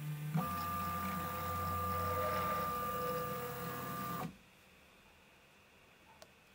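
Prusa MK3S 3D printer running while ironing the coins' top layers: a steady machine whine from its motors. About four seconds in, the sound cuts off abruptly to near silence, with one faint click near the end.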